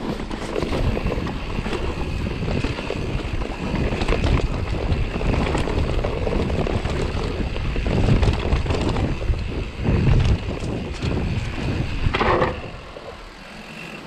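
Mountain bike rolling fast over a rooty dirt singletrack: a continuous rumble with rattles and small knocks from the tyres and frame, mixed with wind buffeting the camera's microphone. It grows quieter for the last second or so.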